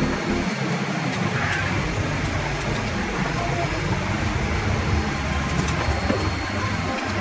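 Steady cabin noise of a Boeing 787-9 in flight: a constant rush of airflow with a low engine drone underneath.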